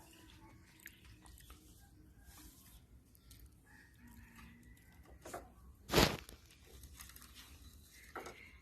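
Puppies chewing and crunching on donuts, with scattered small bites and crackles, and one loud sharp sound about six seconds in.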